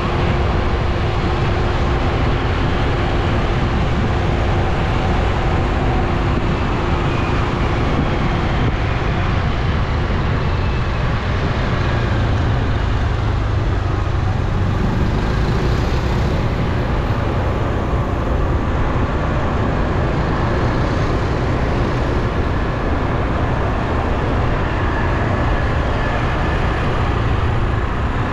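City road traffic heard on the move: motor scooter and car engines under a steady low rumble of wind on the microphone.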